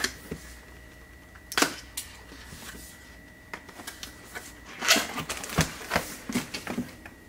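A cardboard keyboard box being cut open and unpacked: scattered clicks, scrapes and rustles of cardboard and packaging, loudest about a second and a half in and again around five seconds in.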